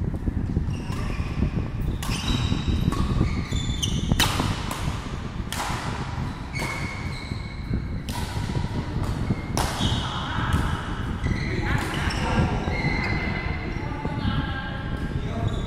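Badminton rally: rackets smacking a shuttlecock about once a second, each hit sharp and echoing in a large sports hall, over a steady low rumble.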